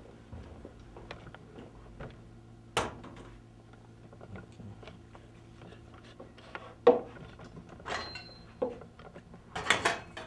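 Scattered light clicks and several sharper knocks, as of small hard objects being handled and set down, over a low steady hum; the loudest knock comes about seven seconds in.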